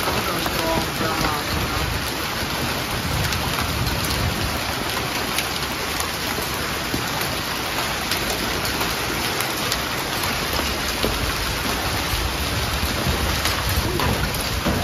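Heavy downpour of rain mixed with hail on a paved patio: a dense, steady hiss with scattered sharp ticks of hailstones striking.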